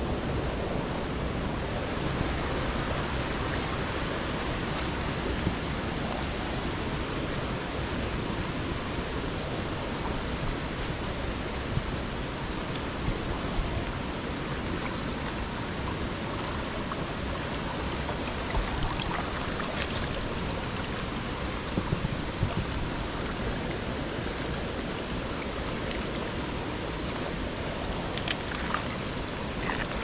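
Mountain stream flowing, a steady rush of water over rocks, with a few brief sharp sounds: one about two-thirds of the way in and a small cluster near the end.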